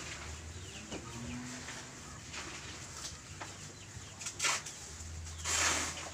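Chickens clucking now and then in the background over a faint low hum, with a short rustle near the end.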